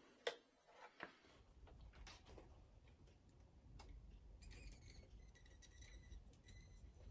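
Near silence with a few faint clicks and taps from handling the gear: a hand in a field box, then a glow-plug igniter clip being fitted to a model engine's glow plug. A faint low hum comes in about a second in.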